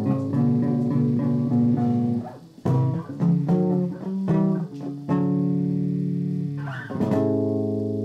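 Bass guitar strings plucked and left to ring while being tuned by ear. For the first two seconds the held notes pulse against each other, almost but not quite in tune. After that come a string of fresh plucks, the last about seven seconds in, ringing on and fading.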